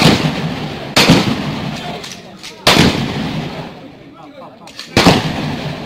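A series of four gunshots from firearms at a shooting range, irregularly spaced, each trailing off in a long echo.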